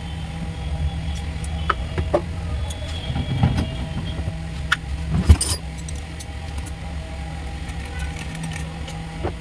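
Metal clinks and knocks of tools working on a car alternator, the loudest knock a little past the middle, over a steady low hum.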